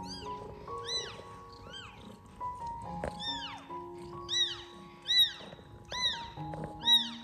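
Newborn kittens mewing: a string of short, high-pitched cries, each rising then falling in pitch, about one every half second to second and louder in the second half. Soft background music with held notes plays underneath.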